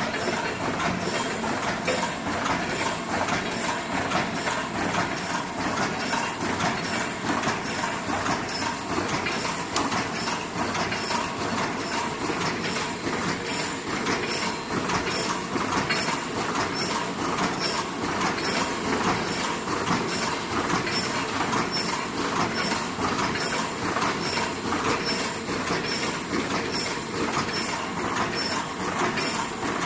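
Automatic chicken-cage wire mesh welding machine running: a steady, dense clatter that repeats with a regular beat.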